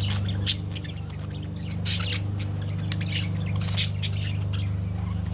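Budgerigars chattering in short sharp chirps and squawks, two loudest about half a second in and near four seconds, over a steady low hum.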